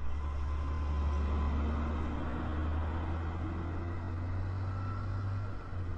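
Vehicle engine idling: a steady low rumble that changes slightly near the end before cutting off.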